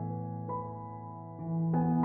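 Slow, soft background music of held keyboard notes, with a new note entering about half a second in and more notes coming in near the end.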